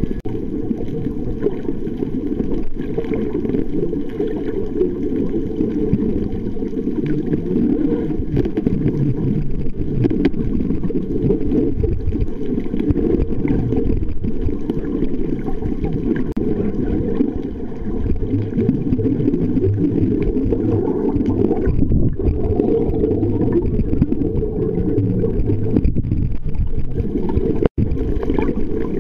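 Muffled underwater rumble of water moving against the camera housing, steady and dull with almost no high sound, cutting out for an instant near the end.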